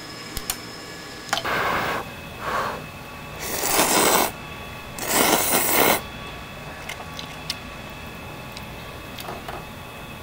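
A person slurping ramen noodles, four noisy slurps, the last two the loudest and longest, with a few light clicks of chopsticks against a metal bowl before and after.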